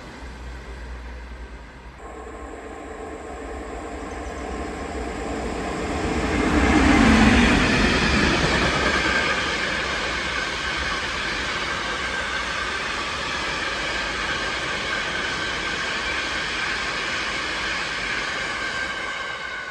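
A train approaching and running past on the tracks. It grows louder to a peak about seven seconds in, then goes on as a steady rolling rumble and rail noise.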